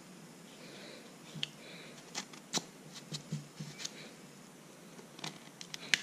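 Metal spoon scraping fresh coconut meat out of a halved coconut shell: a string of short, irregular scratches and clicks.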